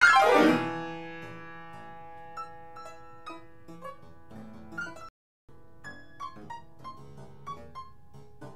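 Instrumental piano music: a loud struck chord at the start that rings away, then single notes picked out over held tones. It breaks off for a moment about five seconds in and starts again.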